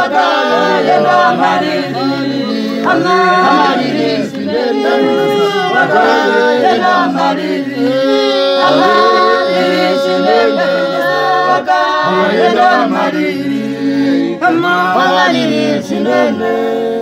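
Church choir singing a hymn a cappella, several voices in harmony, with one long held note in the middle.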